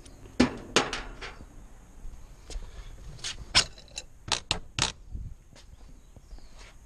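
About a dozen sharp knocks and clicks at uneven intervals: hand tools and hardware being handled around the clamp band of a DE pool filter tank.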